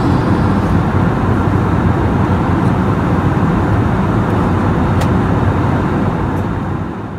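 Airliner cabin noise in flight: a steady rush of engine and air noise, fading out near the end.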